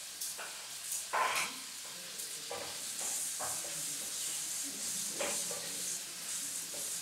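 Food sizzling as it fries in a pan, the hiss growing stronger about three seconds in, with a utensil stirring and scraping in the pan a few times.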